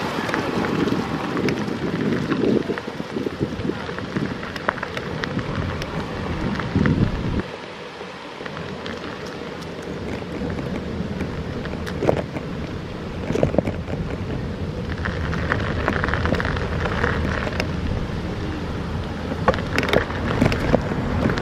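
Riding noise from a moving bicycle: wind rumbling on the phone microphone over a steady rough rush, with many sharp clicks and rattles from bumps in the road. The rumble drops for a moment about eight seconds in, then picks up again.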